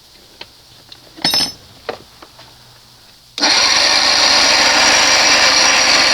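A few light clicks and a short clatter, then about three and a half seconds in a 1992 60 hp Johnson outboard is cranked over by its electric starter, a sudden steady whir that keeps going, while its wide-open-throttle ignition timing is checked with a timing light.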